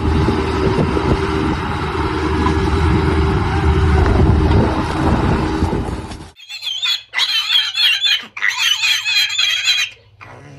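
A loud, steady noise with a low hum, from an unidentified machine or vehicle, cuts off about six seconds in. It is followed by a pig squealing: several long, high, wavering squeals.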